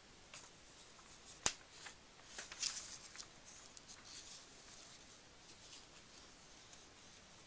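Computer mouse clicks and keyboard keystrokes while software values are edited: one sharp click about a second and a half in, a quick cluster of taps a second later, then a few faint ticks over quiet room hiss.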